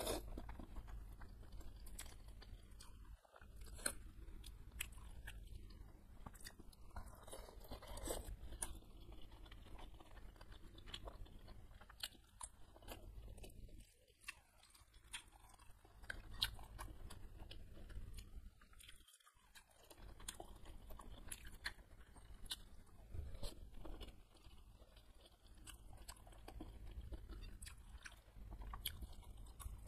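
Close-up chewing and biting of beef meatballs and noodles, with crunches and many short sharp clicks scattered throughout.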